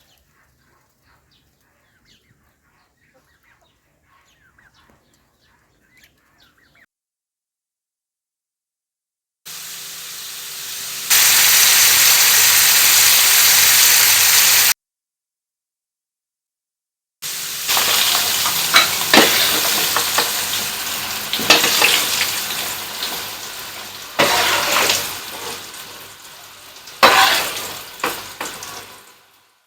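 Small potatoes frying in hot oil in a pan: a loud, steady sizzle begins about ten seconds in. After a short break it resumes with sharp clicks and scrapes of stirring, and slowly dies down.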